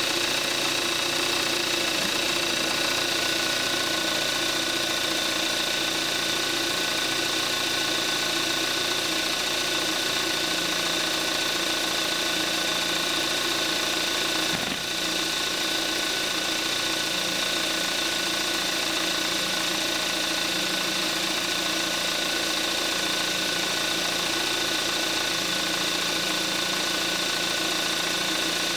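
2014 Kia Forte5's 2.0-litre gasoline direct-injection four-cylinder engine idling steadily with the hood open, still warming up after a cold start, on 5W-30 synthetic oil.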